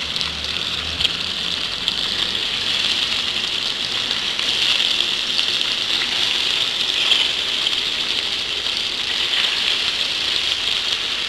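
Egg tofu sizzling steadily as it shallow-fries in hot oil in a frying pan, with a few light clicks of a utensil against the pan as the slices are pulled apart.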